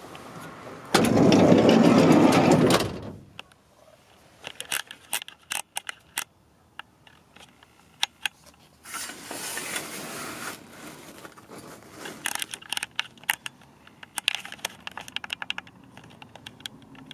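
A loud rushing noise for about two seconds near the start, then scattered clicks and rattles of curtain grommets sliding and knocking along a metal curtain rod.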